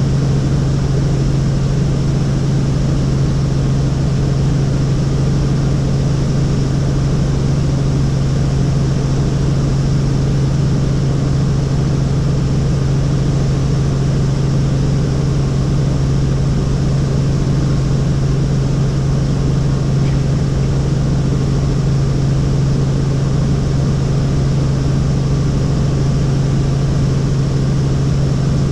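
Helicopter in flight heard from inside the cabin: a loud, steady drone of engine and rotors with a strong low hum.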